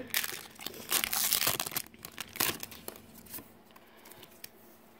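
Foil wrapper of a Pokémon trading card booster pack crinkling and tearing as it is ripped open. The crackles come thick for the first couple of seconds, then thin out and die away.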